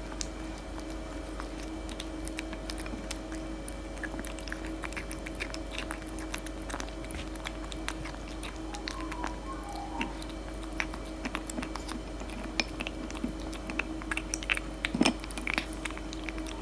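Tabby kitten eating dry kibble from a bowl: an irregular run of small crisp crunches and clicks as it chews.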